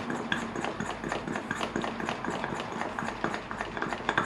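Hand-operated vacuum brake-bleeding pump being worked, a rapid even clicking of about four clicks a second, as it draws brake fluid out through the rear caliper's bleed nipple.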